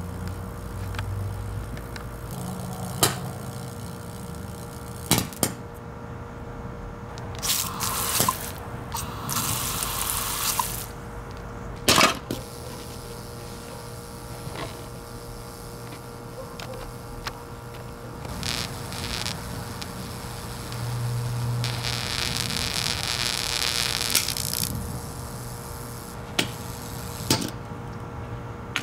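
Hamilton Beach blender motor burning out: a steady hum with crackling, several sharp pops and stretches of hissing from the sparking, failing motor. The longest hiss comes past the middle.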